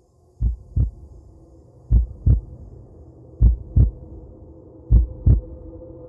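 Heartbeat sound effect: deep double thumps, lub-dub, in a slow steady rhythm, four beats about a second and a half apart, over a faint steady drone.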